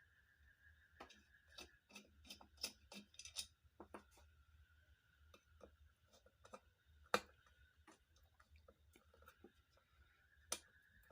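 Scattered light clicks and ticks of a flat screwdriver turning out the screws of a ceiling fan's body, with one sharper click about seven seconds in. A faint steady high whine runs underneath.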